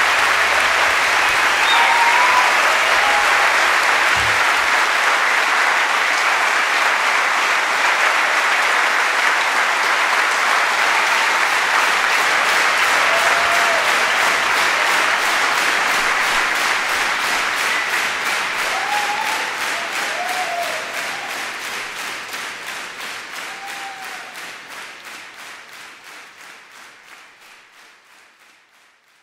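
Concert audience applauding, with a few short calls or whistles over the clapping. The applause fades out over the last several seconds.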